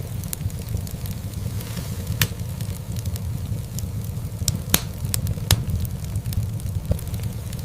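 Wood fire burning in a fireplace: a steady low rumble of flames with scattered sharp crackles and pops, the loudest pops coming about halfway through.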